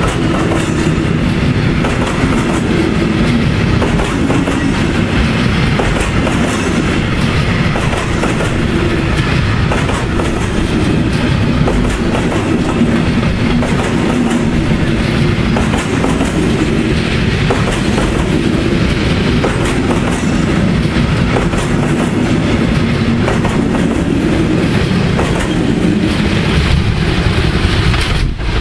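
Freight train of flat wagons loaded with timber rolling past close by, its wheels clattering steadily over the rail joints; the last wagon goes by near the end.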